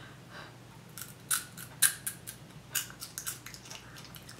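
A crisp crab-shaped chip being bitten and chewed: a run of sharp, irregular crunches starting about a second in, the loudest about two seconds in.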